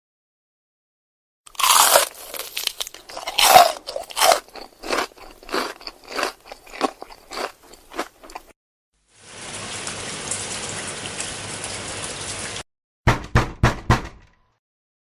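A string of separate stock sound effects. First comes a run of irregular sharp crunching cracks lasting about seven seconds. Then a steady hiss lasts about three and a half seconds and cuts off suddenly, followed by a quick run of four or five sharp knocks.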